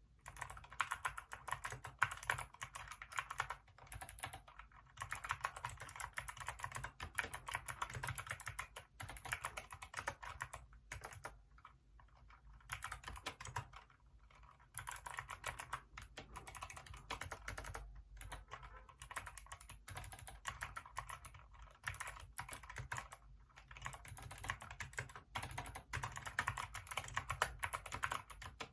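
Hacker K611 mechanical keyboard with Kailh optical switches being typed on in fast, steady runs of key clicks, broken by a few short pauses.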